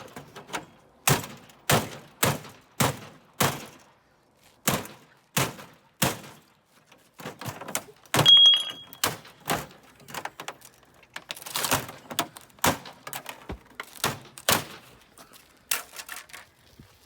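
Repeated hard knocks on a TV's back cover to work it loose: about two blows a second at first, then irregular, with one louder strike about eight seconds in that rings briefly.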